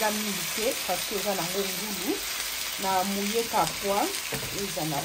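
Pork steaks sizzling steadily in a grill pan, with a fork moving among them. A person's voice rises and falls over the frying.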